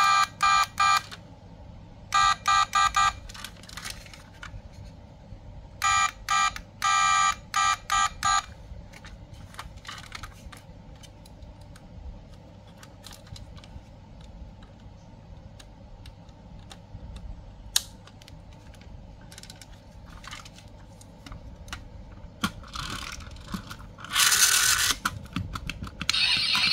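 Short electronic beeps from the diecast model car's sound-and-light module, in three quick clusters over the first eight seconds or so, then small clicks and taps of the model's plastic and metal parts being handled, with a brief noisy burst near the end.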